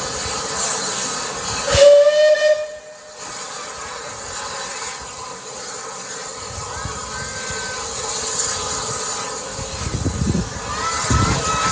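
Steam locomotive Eddystone, a Bulleid West Country class Pacific, gives one short whistle blast about two seconds in, followed by a steady hiss of escaping steam.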